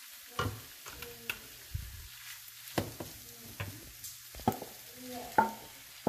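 Wooden spatula knocking and scraping as clam meat is pushed off a bowl into a frying pan, about six sharp knocks, with a faint sizzle from the shallots frying in oil.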